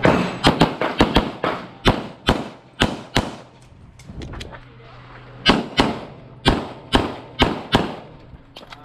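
Semi-automatic pistol fired in rapid strings of shots, mostly in pairs: a fast run of about a dozen, a pause of about two seconds, then another half-dozen, each shot with a short echo.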